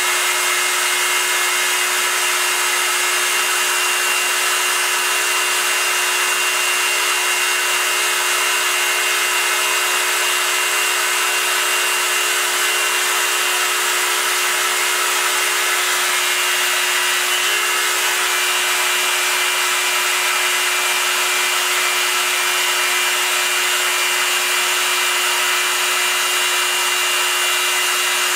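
Proxxon MF 70 mini milling machine, converted to CNC, running its spindle with a steady whine while a small cutter mills aluminium plate.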